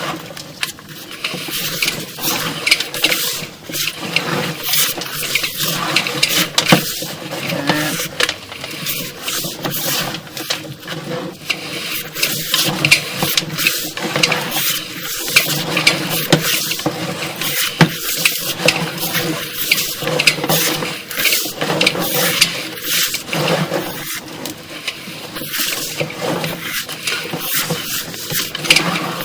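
Sewer inspection camera and its push cable being fed along a sewer pipe, scraping and knocking in dense, irregular clicks and rattles.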